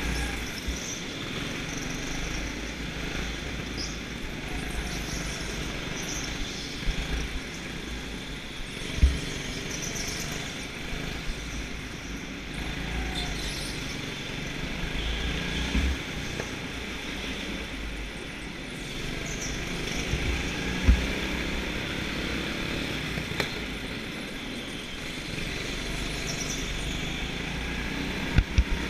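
Go-kart engines running and tyres rolling on the track, heard from onboard a kart lapping at speed, with short high squeaks now and then and a few sudden knocks.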